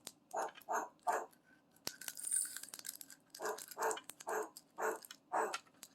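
African grey parrot mimicking a dog: short, rough bark-like bursts, three early, a pause, then a run of about six more at two or three a second.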